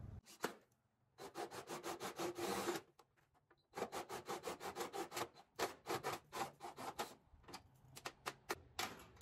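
A cordless drill drives a larger hole saw into a downspout, cutting with a rapid rasping chatter. The cutting comes in bursts, with a short pause about three seconds in and sparser strokes near the end.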